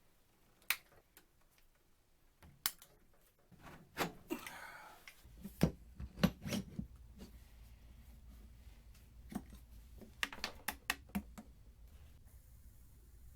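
Scattered sharp clicks and light knocks of small hard objects being handled, with a short rustle about four seconds in and a faint low hum coming in just after.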